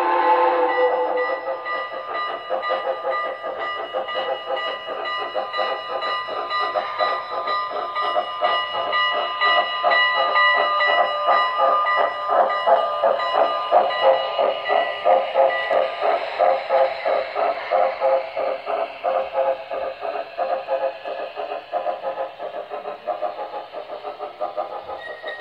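Model steam locomotive sound from an HO scale Norfolk and Western Class A: a whistle ending just after the start, then fast, even exhaust chuffing. The chuffing grows loudest about halfway through as the engine passes close, then fades as it moves away.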